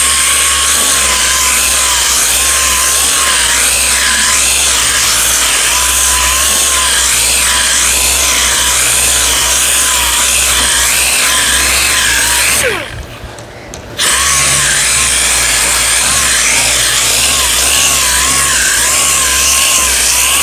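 8-inch orbital sander running under load, sanding down fibreglass body filler on sheet steel, its whine wavering as the pressure changes. About 13 seconds in it is switched off and winds down, then starts again a second or so later and winds down again at the very end.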